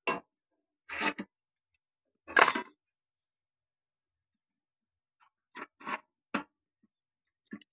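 Metal tractor clutch parts (pressure-plate springs, washers and plates) clinking and knocking as they are handled: a handful of short separate clinks, the loudest about a second and two and a half seconds in, then a quick cluster about six seconds in.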